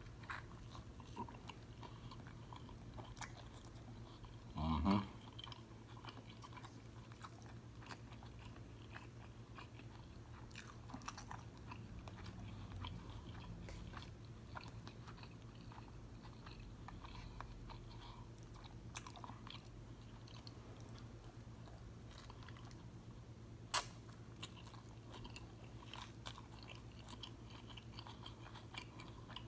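Close-miked chewing and biting of soft corn-tortilla steak street tacos, with many small wet mouth clicks. A short louder sound comes about five seconds in, and a single sharp click near the end.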